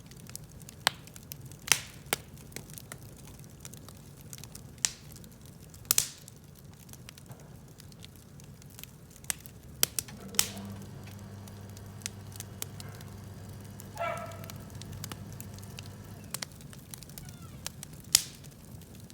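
Wood fire crackling, with irregular sharp pops over a soft steady rush. A low steady hum runs through the middle few seconds.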